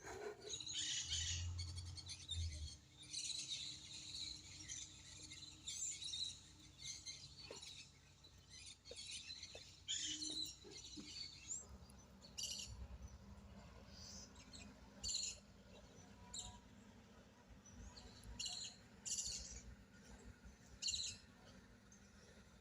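Wild birds chirping and calling: a busy mix of high chirps for the first half, thinning to separate short bursts of calls later on.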